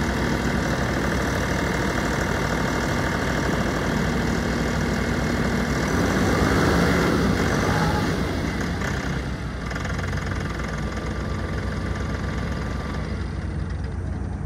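Diesel engine of a 2018 Mahindra 2655 55 hp tractor running steadily. The engine note grows louder about six seconds in, then drops back a little after about nine seconds.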